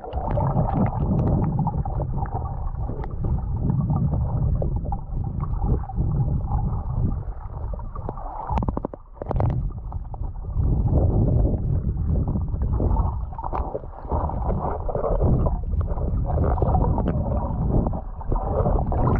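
Muffled underwater rumble and gurgling of a shallow river, picked up by a camera held under the surface, with a few sharp knocks about halfway through.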